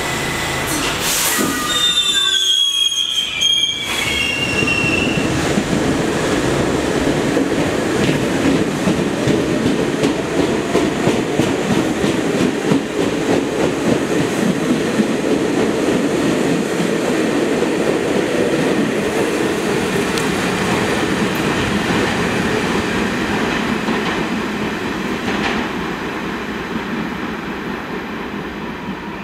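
R68A subway train pulling out of the station and running past. A hiss about a second in and high wheel squeals in the first few seconds give way to a steady rumble of wheels on rail as the cars go by, fading near the end.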